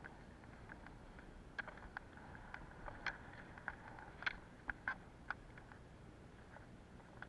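Roller skiing on an asphalt road: a faint steady rolling noise with irregular sharp clicks, one to three a second, from the ski poles' carbide tips striking the asphalt.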